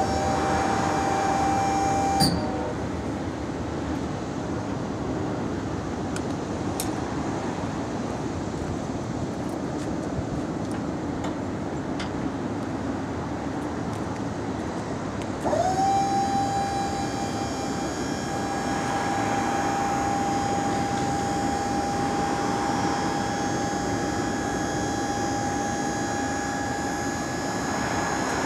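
Electric hoist motor of a Weightlifter pickup-truck crane lift whining as it lifts a loaded dump bed. It spins up to a steady pitch and runs for about two seconds, stops with a clunk, then starts again a little past halfway and keeps running.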